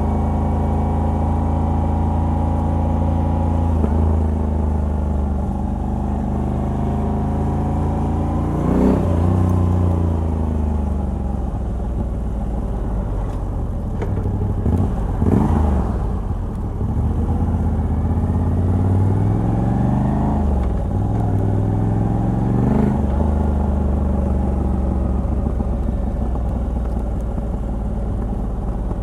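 Moto Guzzi V85TT's air-cooled transverse V-twin, on its stock exhaust with a decat pipe, heard from the rider's seat while underway. It holds a steady cruise, eases off and picks up again around 9 and 15 seconds, then accelerates through two upshifts, the pitch climbing and dropping around 20 and 23 seconds, before settling back into a steady cruise.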